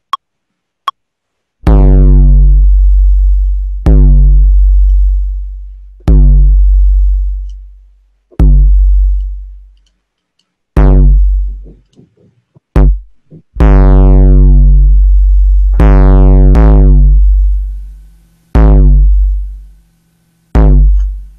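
Roland TR-808-style bass notes played one after another, about eleven hits roughly every two seconds, each starting loud and fading out with a deep low tone. They run through Ableton's Saturator with soft clipping, which adds overtones mostly at the front of each note.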